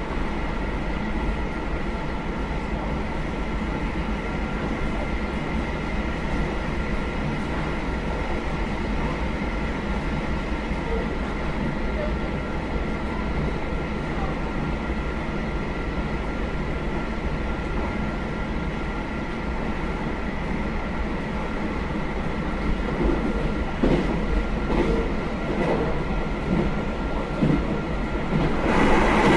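JR Hokkaido KiHa 201 series diesel railcar running along the line: a steady low rumble with a steady high whine, a few knocks about three-quarters of the way through, and the noise swelling louder just before the end.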